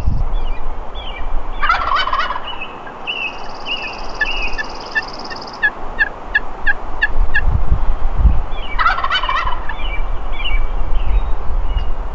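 A wild turkey gobbler gobbling twice, about seven seconds apart, each gobble a loud rattling call.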